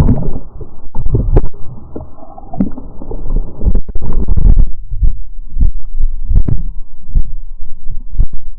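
Muffled underwater sound of a camera held below the river surface: water churning and rumbling against the microphone, with irregular dull knocks, dense for the first half and thinner with sharper taps after that.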